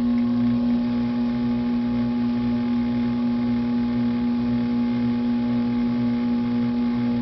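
Potter's wheel motor running at a steady speed: a constant hum with a clear mid-pitched tone over a low drone.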